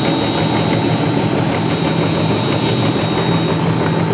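Snack production line machinery running steadily: a dough sheeting and disc-cutting line giving an even mechanical noise with a thin high whine over a low hum.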